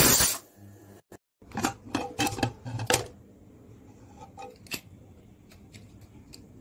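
Aluminium pressure cooker: the steam hiss cuts off right at the start, then a quick run of metal clicks and clinks from about a second and a half to three seconds in, typical of the lid being unlocked and lifted off. A few faint ticks follow.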